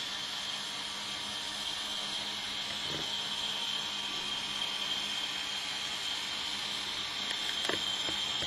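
Small wheeled robot's electric drive motors whirring steadily as it drives and turns, with a few short clicks, two of them near the end.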